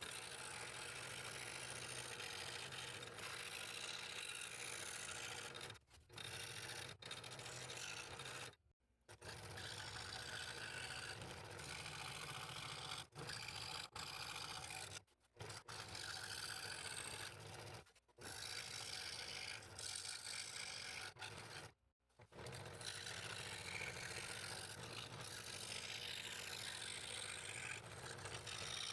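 Scroll saw running and cutting fretwork in a purpleheart board, a steady rasping buzz of the blade through the wood. It stops abruptly several times and starts again.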